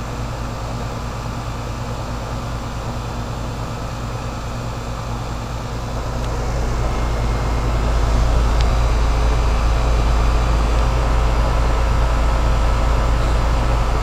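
2004 Goodman 3.5-ton heat pump outdoor unit running in heating mode: steady fan air rush over a constant compressor hum, growing louder about halfway through. The unit is icing up, which the owner suspects is a faulty TXV or low refrigerant.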